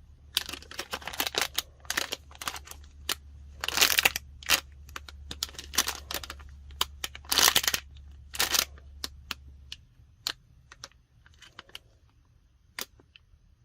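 Plastic wrapping crinkling and crackling in irregular bursts as small squishy toys in their sealed wrappers are handled and squeezed, louder a few seconds in and again near the middle, then thinning to a few scattered crackles.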